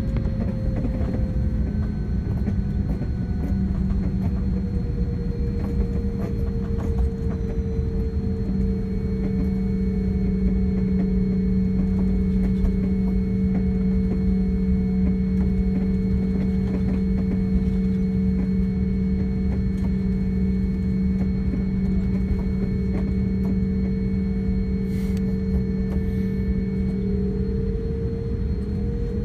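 Airliner jet engines heard from inside the cabin while taxiing: a steady rumble with a low hum and a higher whine that dips slightly and then rises again near the end.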